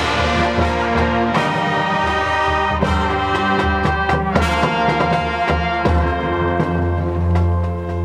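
High school marching band playing: brass holding full, sustained chords over a strong bass, with a few sharp percussion accents as the chords change.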